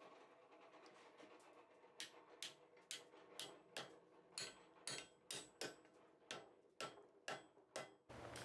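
Hand hammer striking a red-hot iron bar on the anvil to bend it, a series of short taps about two a second starting about two seconds in.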